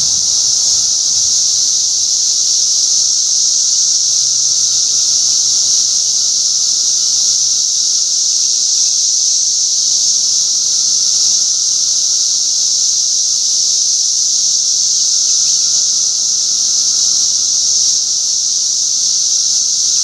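Periodical cicadas chorusing in the trees: a loud, unbroken, high-pitched drone, nearing lawn mower volume, with a fainter, lower steady tone beneath it.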